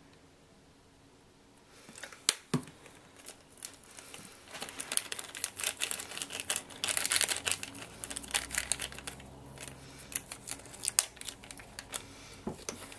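A small clear plastic bag crinkling as fingers rub and squeeze it, mixing powdered pigment and gum arabic inside. It starts about two seconds in, is densest in the middle, and has a few sharp snaps.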